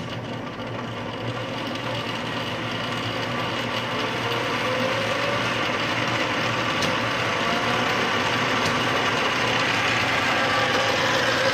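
Hardinge HLV-H toolroom lathe running under power as its spindle speed is turned up with the variable-speed control: a steady mechanical whir that grows gradually louder, with a faint rising whine partway through.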